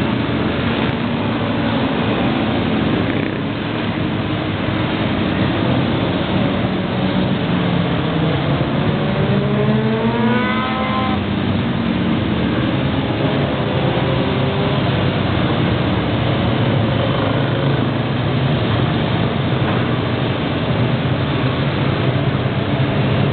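Many motorcycles riding past in a long procession, their engines blending into a steady drone. About eight seconds in, one engine accelerates, its note rising steeply for about three seconds before it cuts off.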